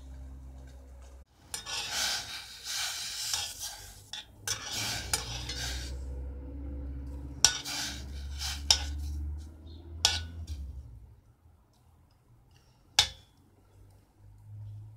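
Metal spoon stirring and scraping in kitchenware for a few seconds, then several sharp clinks of metal on a pot or glass.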